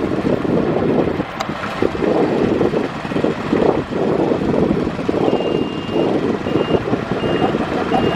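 Heavy diesel earthmoving machine running, with a reversing alarm starting about five seconds in: one longer beep, then short beeps at an even pace.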